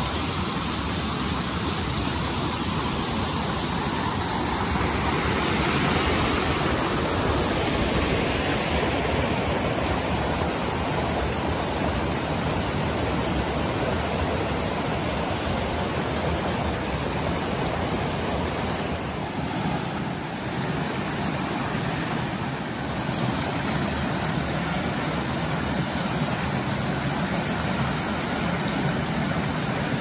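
Water rushing steadily down a shallow cascade of small falls over rock ledges.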